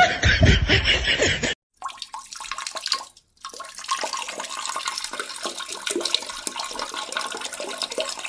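Water rushing and hissing in a toilet, as in a flush or the cistern refilling, running steadily with one brief break about three seconds in. A louder, different sound in the first second and a half cuts off abruptly before it.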